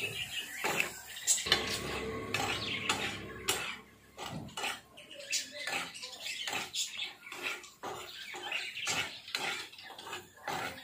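Flat metal spatula scraping and knocking against a black frying pan, stirring a frying onion and tomato mix in quick, irregular strokes.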